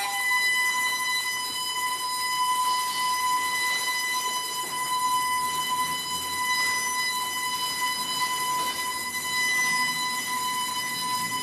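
Sustained electronic tone from a live sound-art performance: a single buzzing pitch with many overtones that steps up in pitch right at the start, then holds steady.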